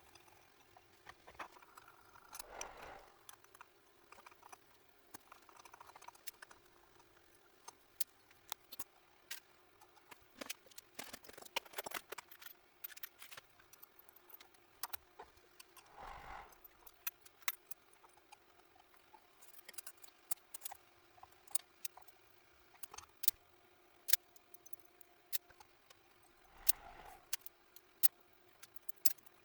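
Small metal parts and tools clinking and tapping as they are handled, with scattered sharp clicks, a few short louder shuffling bumps, and a faint steady hum underneath.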